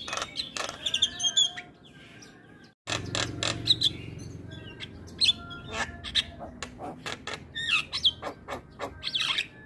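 Javan myna (jalak kebo) singing a dense, varied song of short whistles, clicks and harsh chattering notes, broken by a brief moment of silence nearly three seconds in.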